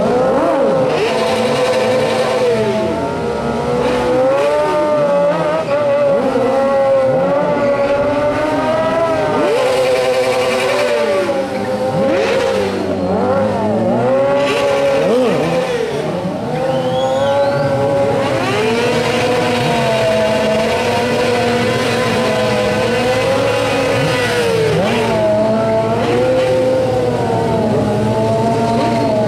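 Several sport bike engines revving hard, rising and falling and held at high revs for seconds at a time, overlapping one another, with tyre squeal from a burnout.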